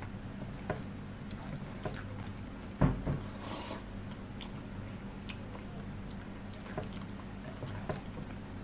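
Messy eating by hand: rice and curry squished between fingers, with chewing, lip smacks and small wet clicks, over a steady low hum. One sharp knock just under three seconds in is the loudest sound.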